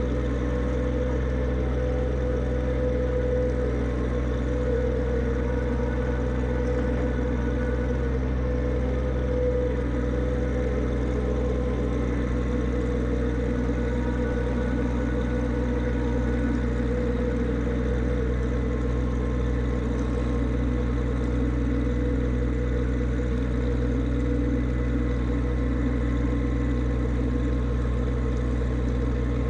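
John Deere 1025r subcompact tractor's three-cylinder diesel engine running steadily at an even, unchanging pitch.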